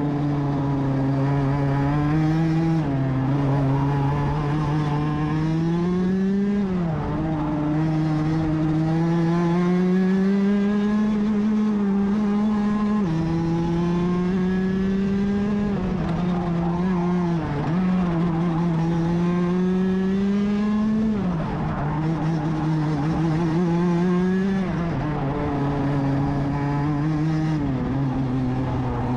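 Rotax DD2 125cc two-stroke kart engine at race pace, heard on board: its pitch climbs slowly along the straights and drops sharply every few seconds going into the corners.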